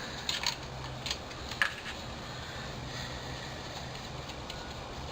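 A few light clicks and taps of small tools or metal parts being handled, mostly in the first two seconds, over a steady low hum.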